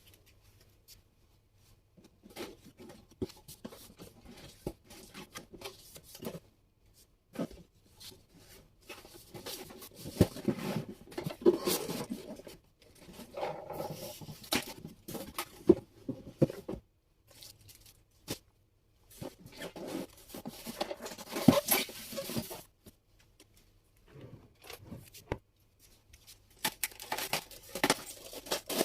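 Packaging being torn open and handled: tearing and rustling with small clicks and knocks, coming in irregular bursts with short pauses between.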